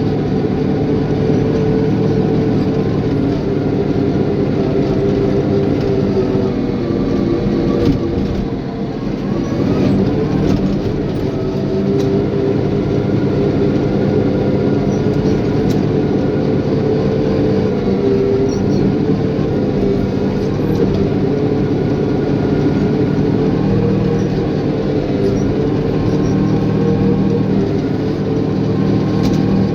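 Caterpillar bulldozer's diesel engine running steadily under work, its note dipping and sagging briefly about eight seconds in before picking back up.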